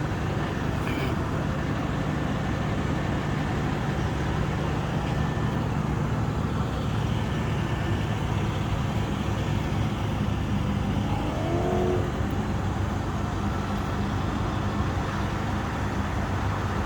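An engine idling steadily with an even low hum.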